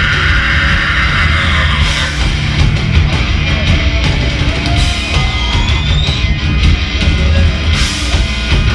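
Live hard rock band playing, with loud electric guitars, bass and a drum kit; sharp accents, likely cymbal crashes, hit about two, five and eight seconds in.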